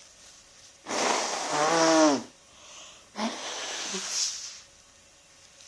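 A sneeze from someone with a heavy head cold, about a second in: a breathy intake-and-burst that ends in a voiced cry falling in pitch. A shorter, weaker breathy breath follows about three seconds in.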